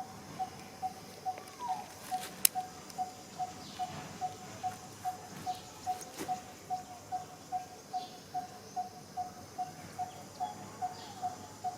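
A short, mid-pitched note repeated evenly a little over twice a second, typical of a calling bird or insect, with one sharp click about two and a half seconds in.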